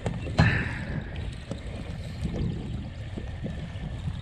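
Choppy water lapping against the side of a small fishing boat, over a steady low rumble, with one sharp knock about half a second in.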